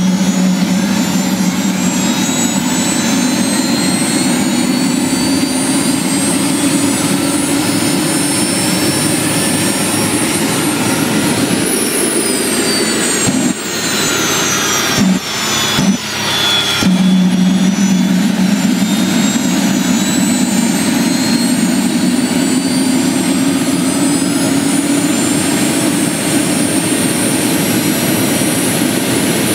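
Gas turbine engine of an MTT Y2K turbine superbike (a Rolls-Royce Allison 250) running with a continuous high whine that slowly drifts in pitch, over a steady low hum. Around the middle the sound briefly breaks up and dips in level before settling back to the steady whine.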